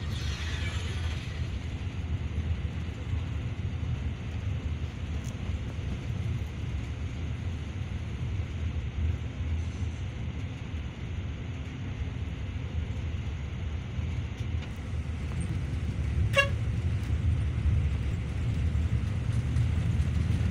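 Steady low rumble of a Yutong bus's engine and road noise, heard inside the cabin while driving. A short horn toot sounds once, late on.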